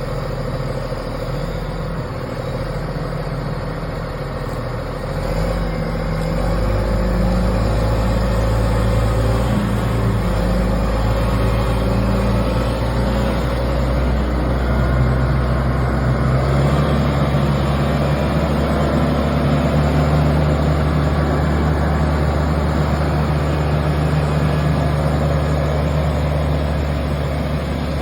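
Heavy engine of work machinery running steadily, its sound stepping up about five seconds in and holding at the higher level.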